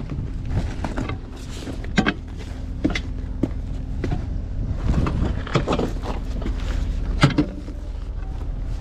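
Footsteps on gravel and irregular metal knocks, the sharpest about seven seconds in, over the steady low hum of an idling truck engine.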